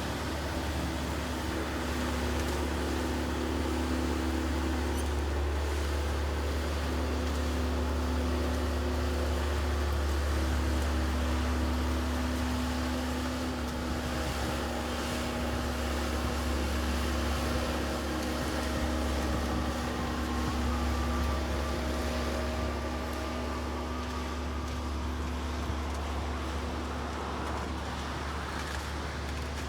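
A vehicle engine running steadily: a continuous low drone with a few faint steady tones above it.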